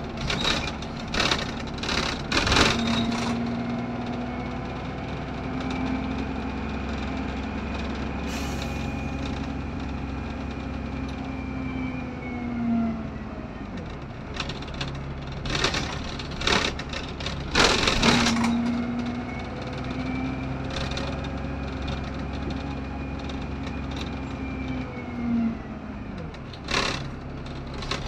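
Optare Solo SR single-deck bus heard from inside while under way: a low engine drone with a whine that rises slowly as the bus gathers speed and falls away as it slows, twice over. Short clusters of knocks and rattles come between the two runs.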